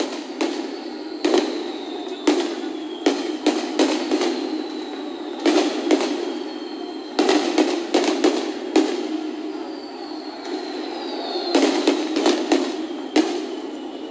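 Aerial firework shells bursting, a rapid, irregular string of sharp bangs. A couple of thin whistles fall in pitch, one about two seconds in and one around ten to eleven seconds in.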